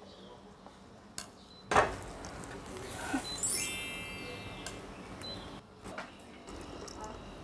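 Light clinks and knocks of plates, a frying pan and utensils, with one sharper knock a little under two seconds in and a short high ringing tone about three and a half seconds in.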